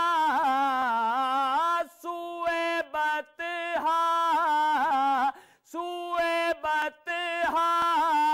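A man singing a naat unaccompanied, drawing out long wavering, ornamented notes in phrases of a second or two with short breaks for breath between them.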